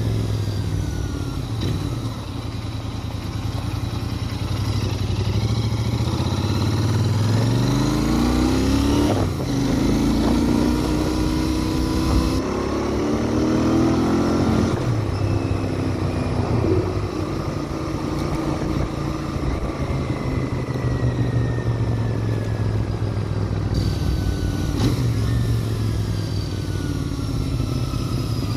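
Royal Enfield Interceptor 650's 648 cc parallel-twin engine and exhaust running, the engine pitch rising twice, about a third of the way in and again near the middle, then settling.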